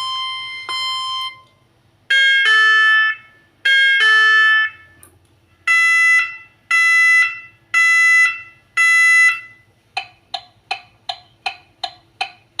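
Electronic warning beeps and chimes from a small speaker driven by a homemade Arduino and DFPlayer car-indicator sound module, playing several sample sounds in turn: a repeating beep tone, two two-note chimes, four longer beeps about a second apart, then from about ten seconds in, quick short beeps about two and a half a second, like a turn-signal ticker.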